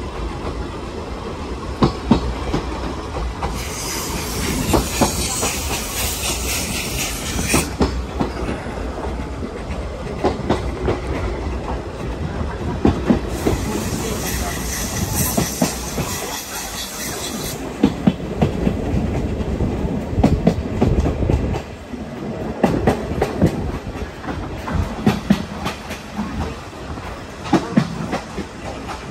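Passenger coach of a steam-hauled train running, with a steady rumble and the wheels clicking over rail joints. Two stretches of high hiss of a few seconds each come in about four and thirteen seconds in.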